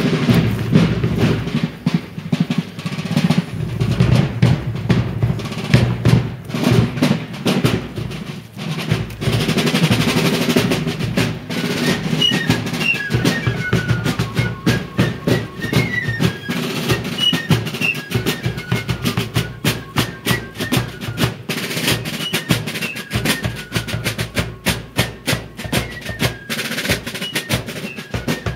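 Military fife and drum corps playing. Snare drums beat rapid strokes and rolls over a bass drum, and from about twelve seconds in a shrill fife melody joins above the drums.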